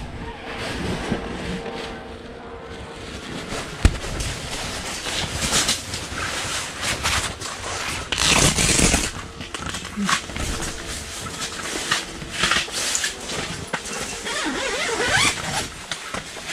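Rustling and scraping as a person moves about inside a fabric pop-up ice-fishing hut, standing up and getting to the door, with one sharp knock about four seconds in.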